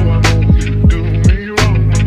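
Background music with a steady beat, deep bass and a hip-hop feel, dipping briefly about a second and a half in.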